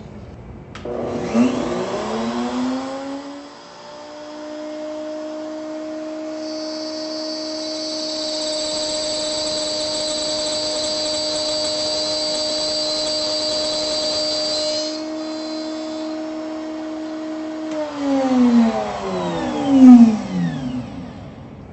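Router motor in a router table spinning up to speed, running steady while the bit cuts a test groove in wood with a high hissing cut for several seconds, then switched off and winding down in falling pitch. The test cut shows the bit's true diameter.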